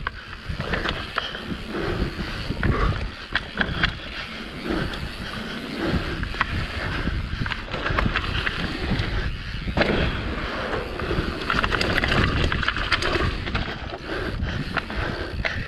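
Mountain bike descending a dirt trail at speed: tyres rolling and scrabbling over dirt and roots, with frequent clatter and clicks from the bike over the bumps.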